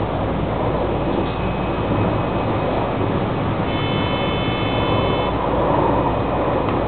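JR West 223 series 2500 subseries electric train running at speed, with a steady rumble of wheels on rail heard from the cab. About four seconds in, a steady high tone sounds for about a second and a half.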